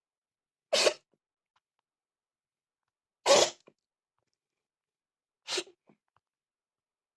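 Sick domestic cat sneezing three times, roughly two seconds apart, each a short sharp burst, the last one weaker. It is the strange, repeated sneezing of an illness that vets could not at first identify.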